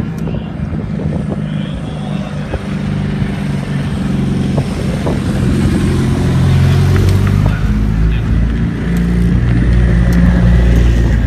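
Modified time-attack race cars' engines running at low speed as a widebody Subaru Impreza and then a Datsun 510 roll past one after the other, a deep steady rumble that grows louder as each car comes close.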